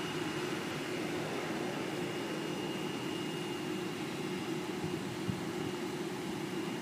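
Distant jet airliners with their engines running at idle while they wait on the taxiway: a steady rushing hum with a faint, constant high whine.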